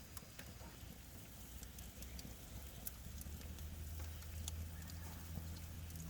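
Faint, scattered crackles and pops from a charcoal grill fire, over a low steady hum that grows stronger about halfway through.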